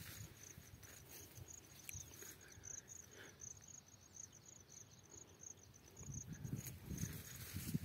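An insect chirping in a high, steady pulse, about four or five chirps a second. Low rustling thumps come near the end, louder than the chirping.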